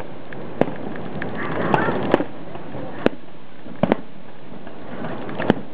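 Aerial firework shells bursting in the sky: about seven sharp bangs at irregular intervals, including a quick pair about four seconds in, over a steady background hiss.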